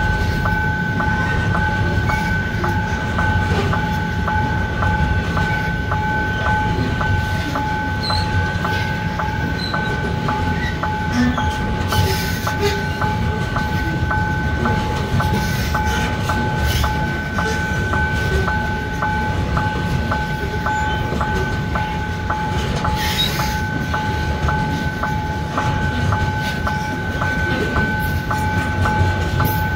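Freight train's covered hopper wagons rolling past with a steady low rumble and a few sharp clanks. Over it, a level-crossing warning signal sounds a steady two-tone electronic ring, pulsing about twice a second.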